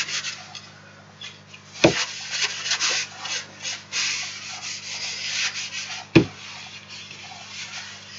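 Folded kitchen roll rubbing vegetable oil into the edges of a beech wood chopping board: a scratchy, uneven wiping sound. Two sharp knocks cut through it, about two seconds in and about six seconds in.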